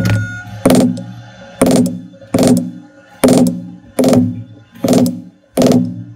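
Rawhide mallet striking a metal leather stamp into vegetable-tanned leather laid on a granite slab, tooling a basket-weave pattern: evenly paced strikes about one every three-quarters of a second, each with a short low ring.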